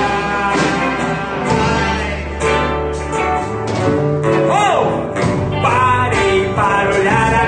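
Christian worship song played by a band with singing over it, with a steady bass line and guitar. About four and a half seconds in, the voice slides up and back down.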